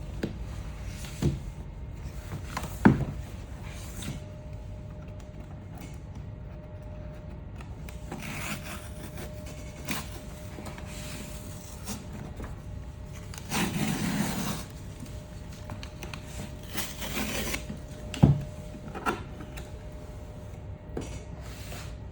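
Handling and opening of an AirPods Max box: a few sharp knocks and taps, with longer stretches of cardboard rubbing and sliding as the packaging is worked open. A faint steady hum sits underneath.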